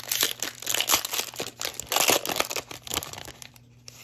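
Foil wrapper of a Topps Tier One trading card pack being torn open and crinkled by hand, a dense crackle that is loudest about two seconds in and thins out near the end.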